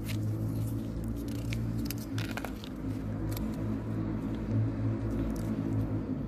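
A cat licking and smacking at a squeeze-tube lickable treat, making a string of short wet clicks. A steady low hum runs underneath and is the loudest sound.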